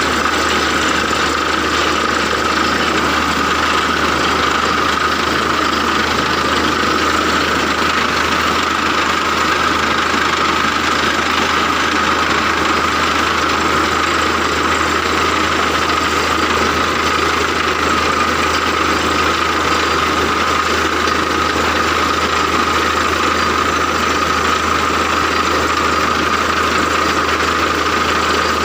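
An engine running steadily at an unchanging speed, with a constant low drone under a steady higher whine.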